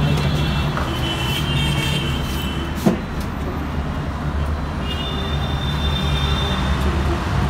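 Steady low rumble of city traffic, with thin high tones twice and a single light knock about three seconds in.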